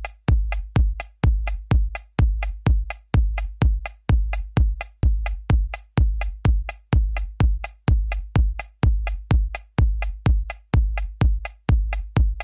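Electronic dance music with a steady, fast drum-machine beat over deep bass.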